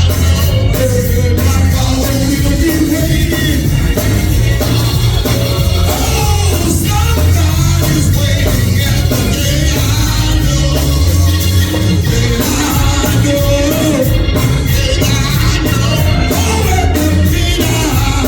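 Church worship music: voices singing over a band with a strong bass line and a steady drum beat.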